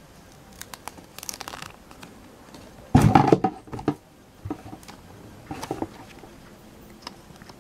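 Paper stickers and a small plastic toy magazine handled close to the microphone: soft crinkling of paper and light clicks, with a louder rustle and bump about three seconds in.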